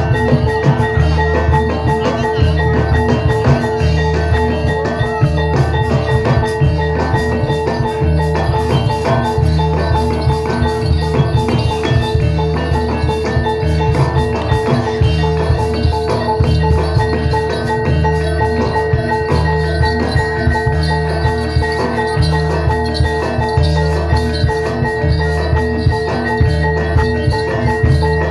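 Gamelan-style accompaniment for a jathilan horse dance: struck metallophones ringing over a steady, repetitive beat of low drums, playing without a break.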